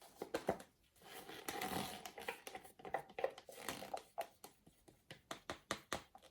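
Handling noises during an acrylic paint pour: a string of light clicks and taps with a few short scrapes and rustles, as paint cups are handled and set down.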